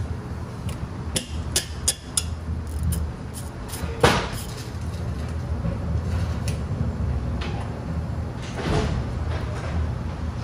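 Scattered metallic clicks and knocks of hand tools and parts being handled at a car's front brake, the loudest knock about four seconds in and another near the end, over a steady low hum.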